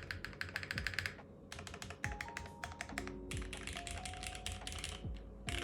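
Geonworks W1-AT custom keyboard, plateless with no foam and fitted with Cherry Hyperglide MX Black linear switches, typed on fast in bursts of rapid keystrokes with short pauses between. Background music plays underneath.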